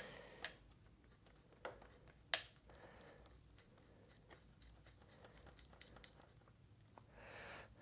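Light metallic clicks and taps of a hand wrench and small metal parts being handled, with one sharp ringing clink about two and a half seconds in and a run of faint quick ticks later on.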